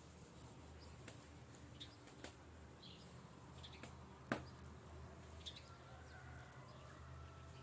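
Near silence: a steady low hum with a few faint, short bird chirps and scattered soft clicks of knife work on a wooden cutting board. One sharp knock about four seconds in.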